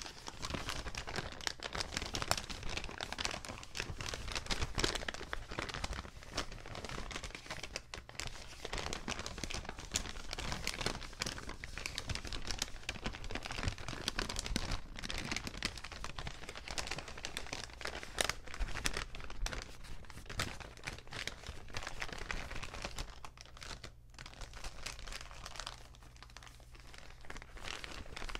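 Paper bags being crinkled and crumpled, a dense and irregular crackling that runs on continuously, easing off for a few seconds near the end.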